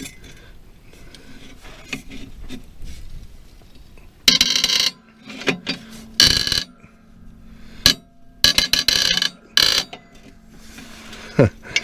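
Seized mower blade bolt in a Lastec 721 deck spindle being forced round with a wrench, giving several short bursts of metal-on-metal creaking and grinding with quieter scraping between them. The bolt is rust-seized and only just starting to turn.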